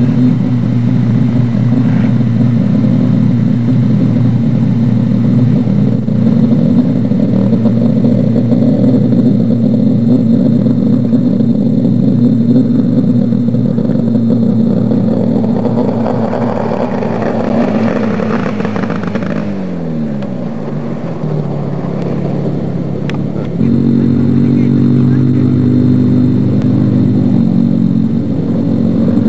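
Off-road racing buggy engines running hard on a dirt special stage. Their note swells, then drops in pitch about twenty seconds in as a car passes or eases off. A louder engine note starts abruptly about 24 seconds in.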